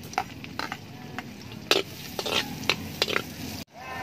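Metal ladle scraping and knocking irregularly against a metal wok as chopped garlic is stirred and fried in it over a wood fire, with a sizzle under the strokes.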